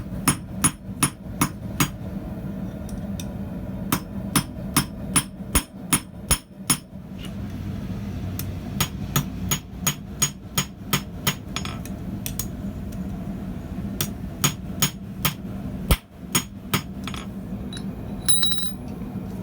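Hand hammer striking hot steel on an anvil while forging a thumb latch. The blows come in four runs of about three a second with short pauses between them, over a steady low hum. A brief metallic ring comes near the end.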